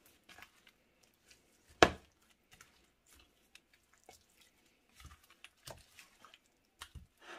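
Raw marinated steak squishing and slapping wetly as a gloved hand turns and rubs it in a bowl, with one sharp, loud slap about two seconds in.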